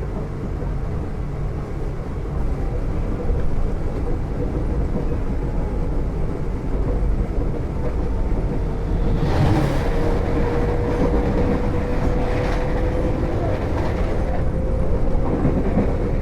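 Commuter train running, with a steady low rumble. About halfway through, a faint whine begins and slowly rises in pitch, with bursts of high noise at that point and again a few seconds later.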